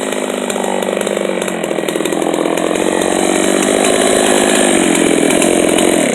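Two-stroke chainsaw on a chainsaw mill running under load, ripping a white oak log lengthwise. Its engine note is steady and grows louder from about halfway, then cuts off suddenly at the very end.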